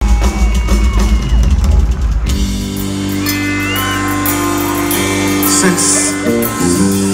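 Live rock band heard loud through the venue's PA: drums and guitars play together for about two seconds, then the drums drop away and sustained guitar and bass chords ring on.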